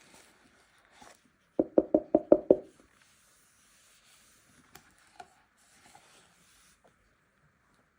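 A quick run of about seven hollow-sounding taps packed into about a second, followed by faint rustling and a few small clicks of handling.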